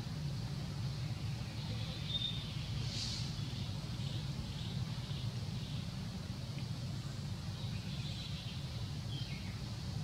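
Outdoor ambience: a steady low rumble with a few faint high chirps, about two and three seconds in and again near the end, some of them falling in pitch.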